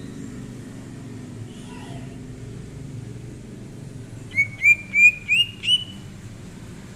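Greater green leafbird (cucak ijo) singing a quick run of five loud, clear upward-slurred whistles, each a little higher than the one before, starting about four seconds in. A low steady rumble runs underneath.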